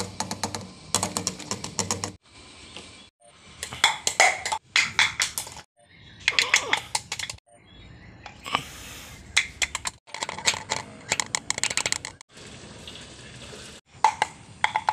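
A plastic cup clattering as it falls and tumbles over hard ground: bursts of rapid knocks and rattles, separated by short pauses.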